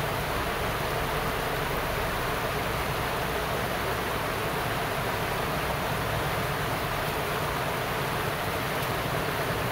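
Steady rushing of a swollen river running over rocky rapids.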